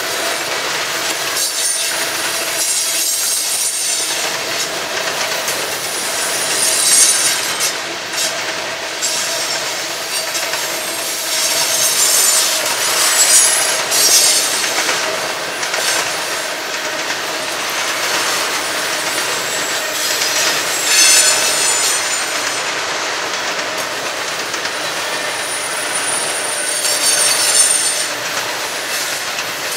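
Manifest freight train of covered hoppers and tank cars rolling past at speed: a continuous clatter of steel wheels on the rails. High-pitched wheel squeal flares up several times.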